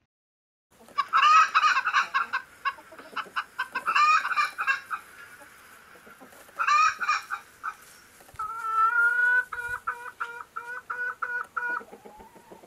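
Chickens, a rooster among hens, clucking and calling in loud bursts, starting about a second in, then a run of quick repeated same-pitched notes.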